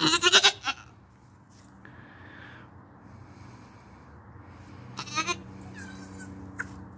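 Nanny goat in labor bleating: one loud bleat right at the start, then a shorter, quieter bleat about five seconds in.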